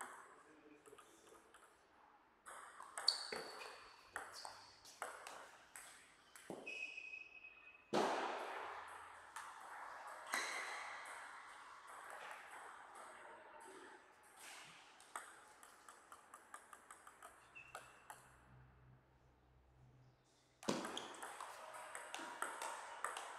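Table tennis ball struck back and forth in two rallies: runs of quick, sharp clicks of the celluloid/plastic ball on rubber paddles and the table. Each rally is followed by a sudden burst of broader noise.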